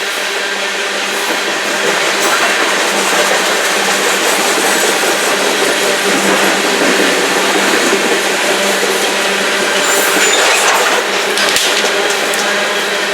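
Union Pacific coal train cars rolling past, a steady noise of wheels on rail. Late on, a short sharp metallic sound like something breaking, followed by a few clinks like a metal nut bouncing on pavement; the source of these sounds is unidentified.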